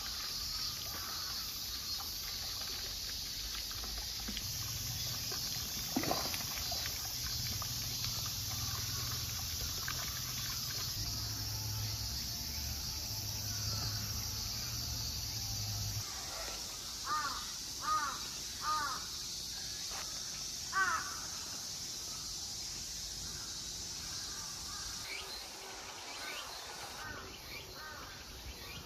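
Outdoor ambience with a steady high hiss. About seventeen seconds in, a crow caws three times in quick succession, then once more a moment later.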